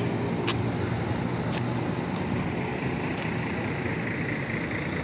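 A large bus's diesel engine running steadily, with a couple of faint clicks.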